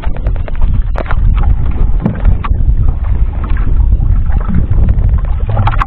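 Wind buffeting the microphone over water slapping against the hull of a small outrigger fishing boat on choppy sea, with a few sharp knocks.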